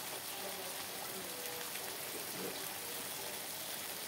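Sliced bitter gourd and egg sizzling in a wok, a steady hiss that does not let up.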